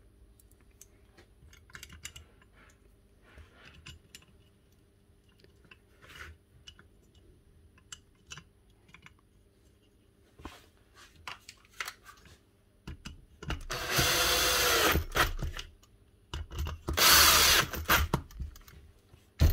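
Light clicks of small parts being handled, then a cordless drill-driver runs in two bursts: about two and a half seconds, then about a second and a half. It is driving in screws that have just been dabbed with Loctite threadlocker.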